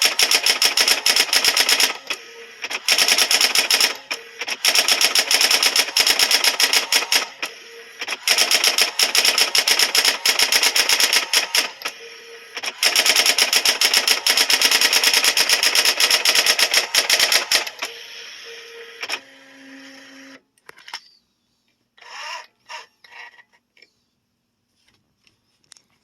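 Brother ML100 electric typewriter typing fast, its keys striking in long rapid runs with short pauses. The typing stops after about eighteen seconds, a brief steady motor hum follows, then a few last clicks.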